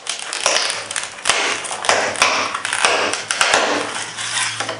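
Stiff clear plastic blister pack being pulled and flexed off its cardboard backing card, crackling and crinkling with several sharp clicks.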